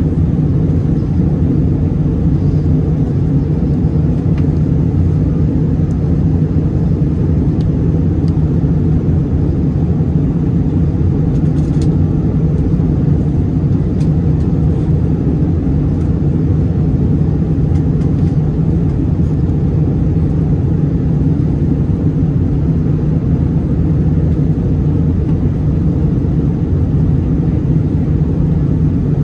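Steady low roar of airflow and engines inside the cabin of an Airbus A321-200 airliner on descent.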